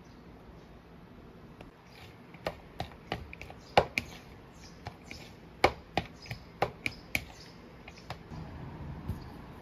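A plastic spatula mixing rice seasoned with sesame oil in a clear plastic bowl, making sharp, irregular clicks and taps as it knocks and scrapes against the bowl. The tapping starts a couple of seconds in and stops near the end.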